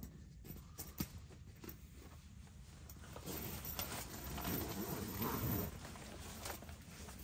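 Scattered sharp crackles and pops, consistent with a wood stove burning. About three seconds in comes a couple of seconds of louder rustling as a person moves about.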